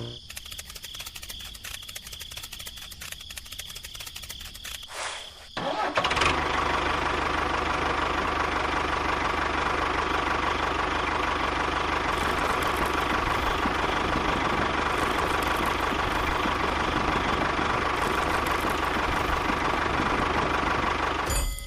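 A small electric motor starts up about six seconds in and then runs steadily with a constant whine. Before it starts there are a few seconds of quieter, rapid ticking.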